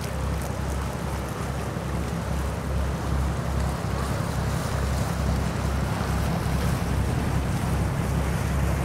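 Wind buffeting the microphone: a heavy low rumble that swells and drops unevenly, over a steady hiss of wind.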